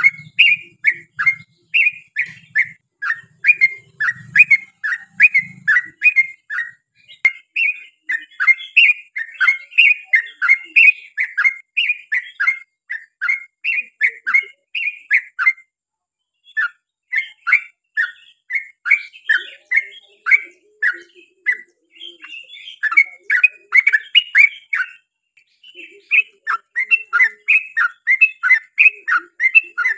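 Yellow-vented bulbul singing long runs of short chirping notes, about three a second. There are brief pauses about halfway through and again near the end.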